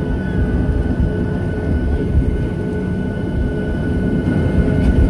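Airliner cabin noise during landing: a steady low rumble of the jet engines and rushing air, with a few faint steady whining tones above it.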